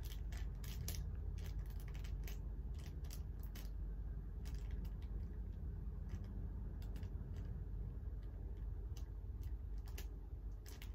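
Faint, irregular small clicks and taps, a few a second at most, over a low steady hum.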